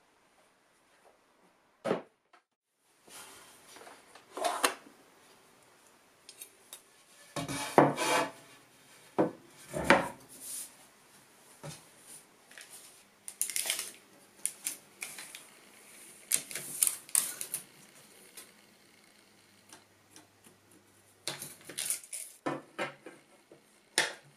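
Workbench handling sounds: a red cedar board set down and shifted on a wooden bench top, with scattered knocks, taps and rubs, and a cluster of quick clatters near the end as a square is laid on the board.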